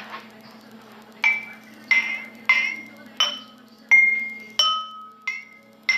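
Glass tumblers filled with different amounts of water are tapped one after another, forming a makeshift water-glass xylophone. There are about eight strikes starting a second in, and each glass rings on with its own clear pitch, set by how much water it holds.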